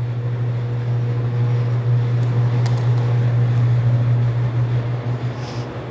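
Electric wire stripping machine running steadily with a low, even hum, with a few faint clicks.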